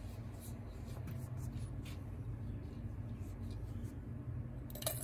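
A cloth shop rag rubs and scrapes over the plastic and metal housing of a chainsaw powerhead, with light handling noises over a steady low hum. Just before the end, a run of sharp clicks and taps begins as hands work at the top of the saw.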